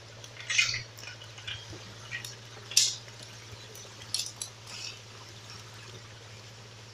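Footsteps crackling on dry twigs and leaf litter, a few irregular snaps over about five seconds, over a steady low hum from the idling engine of a small forestry tractor.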